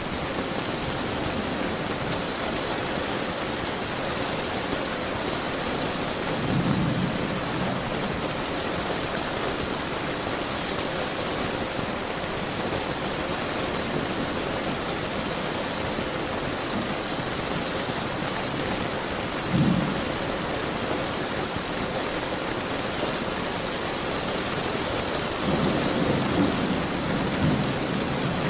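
Steady rain with thunder rumbling three times: a swell about seven seconds in, a short sharp clap near twenty seconds, and a longer roll near the end.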